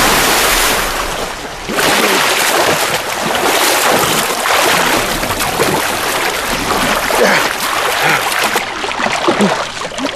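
Sea water splashing and churning: a man plunging off a raft into the ocean at the start, then his swimming strokes through choppy waves.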